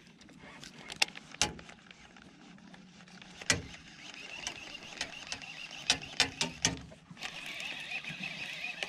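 About seven sharp clicks and knocks of fishing tackle in an aluminum jon boat, spread over the first seven seconds. From about seven seconds in comes the steady high whir of a baitcasting reel being cranked in.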